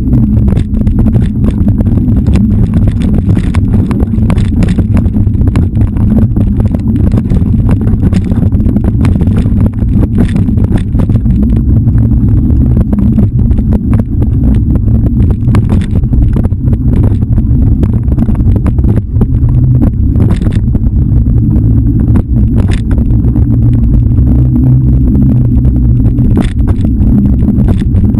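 Steady low rumble of wind buffeting and trail vibration on a fast-moving GoPro action camera riding a dirt forest trail, with frequent short knocks and rattles from bumps and roots.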